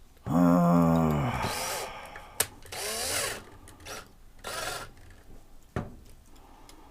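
Small power drill running briefly and winding down, drilling out a diecast toy truck so its base can be taken off. A click and a few short scraping, rubbing noises follow.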